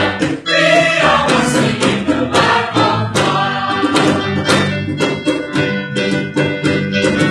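Student choir singing together over instrumental accompaniment with a regular beat.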